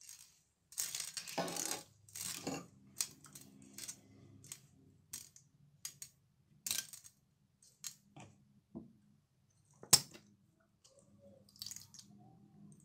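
Silicone spatula stirring and scraping bead-covered slime in a glass baking dish: irregular bursts of wet crackling and clicking beads, with a sharp knock about ten seconds in. A faint steady hum runs underneath from about three seconds on.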